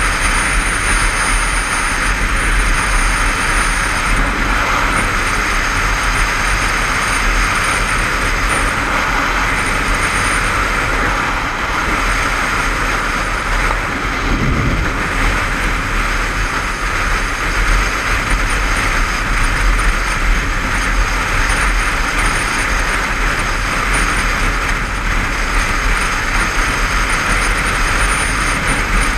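Steady wind rush over a motorcycle-mounted camera's microphone at dual-carriageway speed, with the motorcycle's engine and tyre noise running low underneath. A brief deeper swell comes about halfway through.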